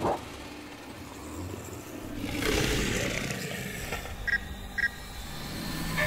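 Cartoon sound effects: a low rumbling noise that swells and keeps building, with two short high beeps a little past four seconds in.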